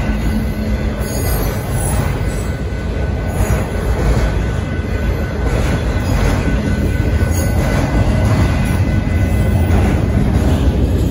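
Kansas City Southern autorack freight train rolling past at a grade crossing: a steady, loud low rumble of wheels on the rails, with a thin high squeal held over it.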